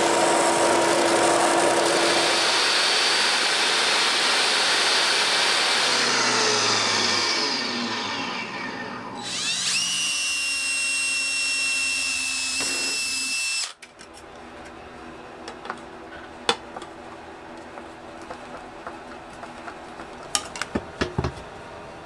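A bench belt sander runs and then winds down over the first several seconds. A power drill then spins up to a steady high whine for a few seconds and cuts off suddenly, leaving only light clicks and taps of parts being handled.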